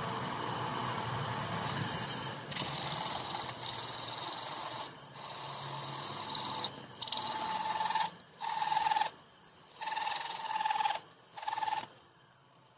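HSS hole cutter in a pillar drill cutting through thick steel flat bar, a harsh grinding scrape that breaks off and restarts several times as the feed is eased. A steady whine comes in with the cut in the second half. The noise stops about twelve seconds in.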